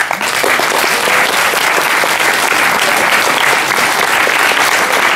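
Audience applauding: dense, steady clapping that sets in suddenly and holds at an even level.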